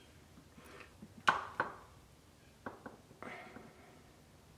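A metal teaspoon clinking and scraping against the inside of a glass jar as it digs into the solidified fat layer on bone broth: one sharp clink about a second in, then a few softer knocks.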